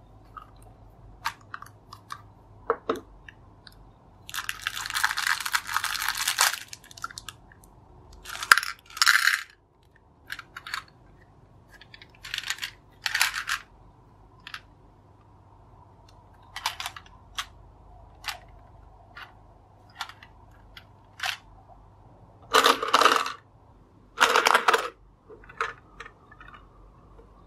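Small plastic Bonbonribbon toy gumball candy machine being handled: short plastic clicks and clatters of small hard candies rattling inside it and dropping through the mechanism, with a longer rattle about four seconds in and several paired bursts later.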